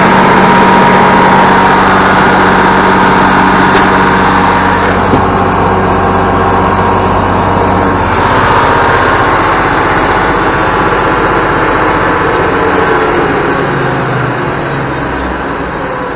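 International Harvester 1586 tractor's diesel engine idling steadily, just brought back to running after sitting for a couple of years.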